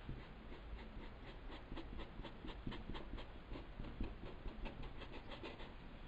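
Paintbrush dabbing short, quick strokes onto fabric, a faint scratchy brushing about four times a second.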